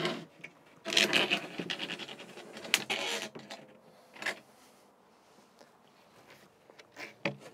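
A laminated wooden bed-base panel sliding out along its support rails with a scraping rub, then a sharp knock and a few smaller knocks as it is lifted and handled.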